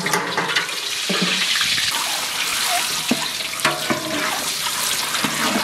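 Peeled boiled eggs sizzling and crackling in hot oil in an aluminium pot, with a few knocks as more eggs are dropped in.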